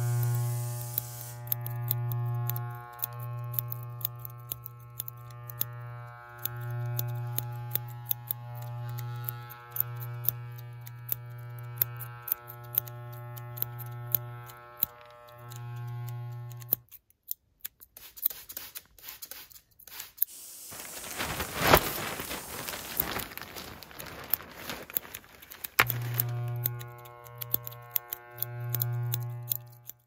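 Electric hair clippers buzzing at a steady pitch, swelling and fading in pulses, with quick snips of scissors over them. Just past halfway the buzzing stops and a rushing hiss runs for about nine seconds, then the clippers buzz again near the end.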